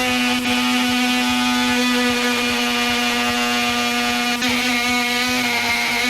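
DeWalt oscillating multi-tool with a Milwaukee carbide blade running steadily at full speed, cutting through a seized seat security screw, with a loud, even whine.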